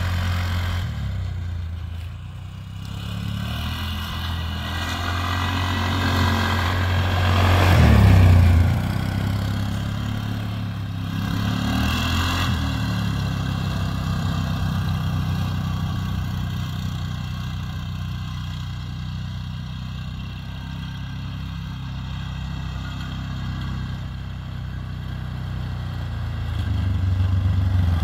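2000 Polaris Sportsman 500 6x6 ATV's single-cylinder four-stroke engine running as it laps a dirt track, loudest as it passes close about eight seconds in, then steadier further off, and growing louder again near the end as it drives up close.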